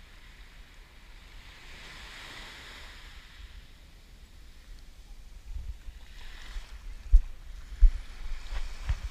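Small waves washing up the sand at the water's edge, the surf hiss swelling twice. Low bumps on the microphone in the second half.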